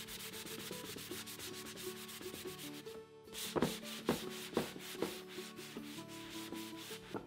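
A 220-grit sanding sponge rubbed by hand over the painted wood of a step stool in quick, even back-and-forth strokes, several a second, with a brief pause about three seconds in. The sponge is scuffing the flat surfaces to smooth spray bumps and distress the white paint coat.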